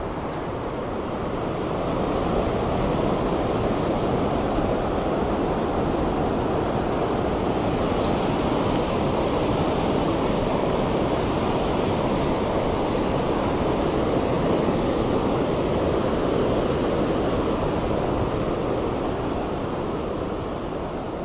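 Steady rush of river water, with white water spilling over a low weir.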